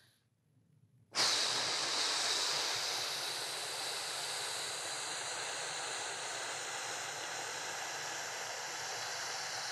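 A man's long, hissing exhale, starting abruptly about a second in and held steadily, loudest at its start. It is the exhale of a deep diaphragmatic breathing exercise, pressing the air out to contract the front of the core.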